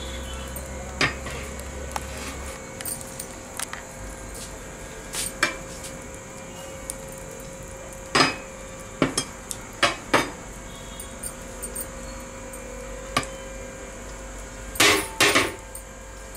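A metal ladle knocking and scraping against a large metal cooking pot while turning cooked pulao rice: about ten irregular clanks, two close together near the end.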